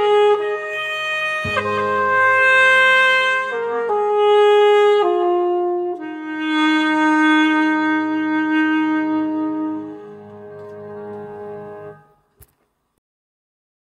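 An instrumental song with a wind instrument carrying the melody in long held notes over a backing track of steady chords. It closes on a long held final note that fades, and the music stops about twelve seconds in.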